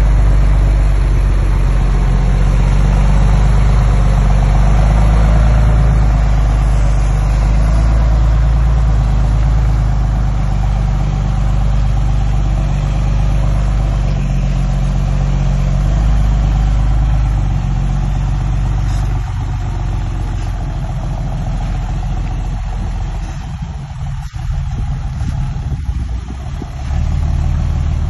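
Diesel engine of heavy construction machinery running with a steady low rumble. It eases off briefly a few seconds before the end, then picks up again.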